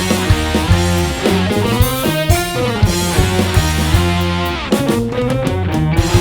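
Instrumental rock: guitars and bass playing over a drum kit, with a loud, steady rhythm.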